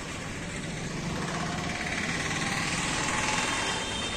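A motor vehicle engine running at idle amid steady traffic noise, getting a little louder past the middle.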